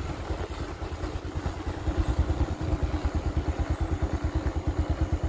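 Motorcycle engine ticking over with a rapid, even low pulse as the bike coasts along in neutral.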